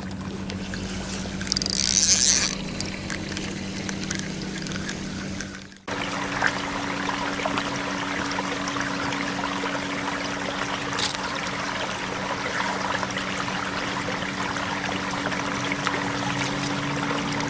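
Running and trickling river water with a steady low hum underneath, and a brief louder splash of hiss about two seconds in. The sound cuts off abruptly about six seconds in, then steady water sound with a low hum resumes.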